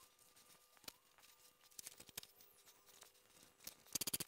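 Cloth leader being handled and pressed onto hook-and-loop tape along a quilting-frame rail: mostly very quiet, with faint scattered clicks and rustles, then near the end a quick run of sharp crackles.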